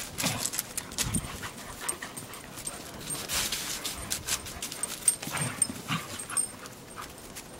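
A weimaraner and a collie play-fighting roughly on snow: short dog vocal sounds and scuffling, in irregular bursts.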